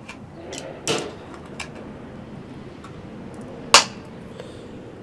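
Clicks and creaks from the glued plastic housing of a Hampton Bay solar LED spotlight as it is pried apart, then one sharp, loud snap about three-quarters of the way through as the glued joint pops free.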